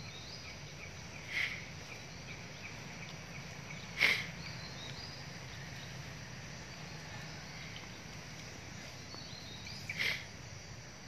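Outdoor woodland ambience with a steady insect hum and faint bird chirps. Three brief sharp sounds cut through it: about a second and a half in, a stronger one at four seconds, and one near the end.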